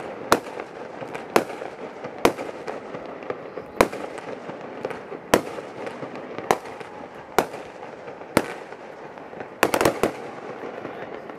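Aerial fireworks bursting: sharp bangs about once a second at uneven spacing, then a quick flurry of several bangs near the end.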